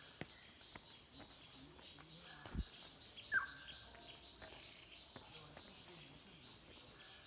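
Faint forest birdsong: a high chirp repeats about twice a second, and a short falling whistle comes about three and a half seconds in. Footsteps on a wet trail sound under it.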